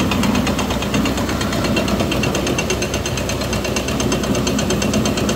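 Farmall Cub tractor's small four-cylinder engine running steadily under load, belt-driving a corn grist mill, with a fast, even clatter from the mill and its shaking sifter screen.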